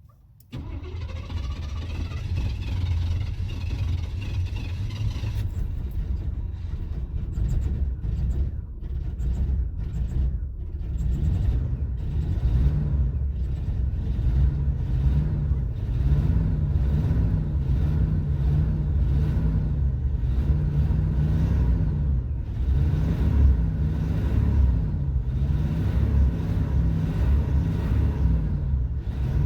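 Flooded Chevy engine sputtering and chugging as it is cranked with the gas pedal pumped, then running, its pitch rising and falling over and over as it is revved from about halfway through.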